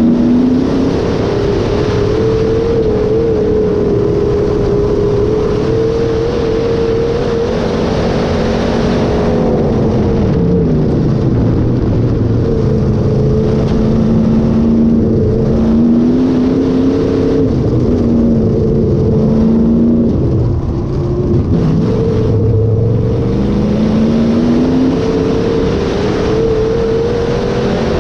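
Sport mod dirt-track race car's V8 engine running hard at racing speed. It holds a high pitch, drops off twice, about a third and two thirds of the way through as the throttle comes off for the turns, and revs back up each time.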